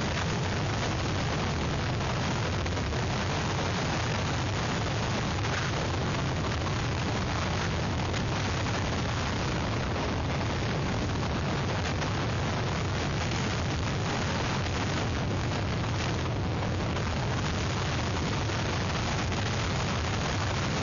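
Hurricane wind blowing on an outdoor webcam's microphone: a steady rushing noise with a low rumble under it.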